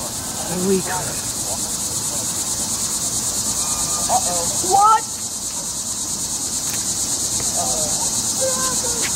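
Steady chorus of insects trilling high in pitch with a fast, even pulse, the evening insect song of a rural field, with faint voices now and then.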